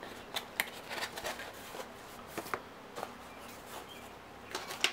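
Light clicks and rustling of a game miniature and its small box being handled as the figure is packed back in, with a louder cluster of clicks near the end.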